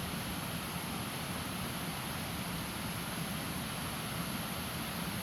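Steady rushing of a river's flowing water, an even noise that does not change.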